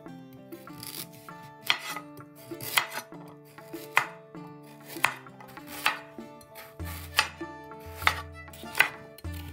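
Chef's knife slicing a raw carrot into rounds on a slate cutting board: a sharp chop about once a second as the blade cuts through and strikes the stone, about ten in all. Background music plays underneath, with a bass line coming in about two thirds of the way through.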